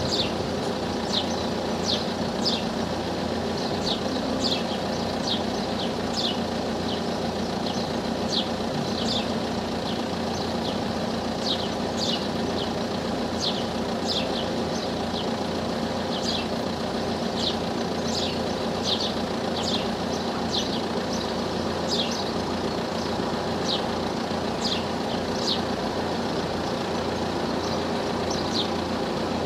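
Steady hum of idling car engines waiting at lowered level-crossing barriers, with short high bird chirps repeating irregularly throughout, about one or two a second.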